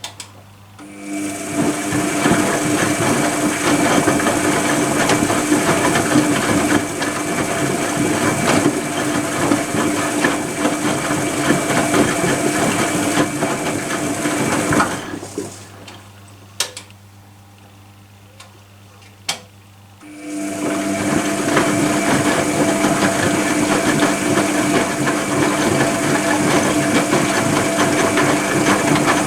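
Privileg Compakt 92 washing machine's drum motor running with a steady whine and hiss for about fourteen seconds, then stopping; two clicks sound in the pause before the motor starts up again, about twenty seconds in, as in a wash cycle's stop-and-start tumbling.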